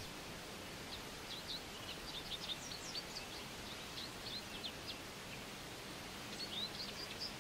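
Small birds chirping in quick, short calls over a steady faint hiss of forest ambience, with a cluster of chirps near the start and another near the end.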